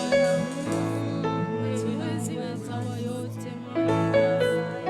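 Slow gospel worship music from a live church band: sustained instrumental chords with some singing voices.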